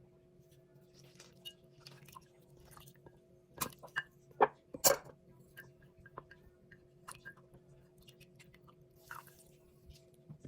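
Hand food-preparation noises: scattered small clicks and crackles, with a few sharp knocks or snaps a little before the middle, over a steady low hum.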